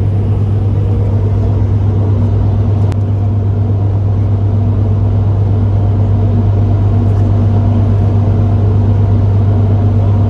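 A boat's engine running steadily: a loud, even low hum that does not change.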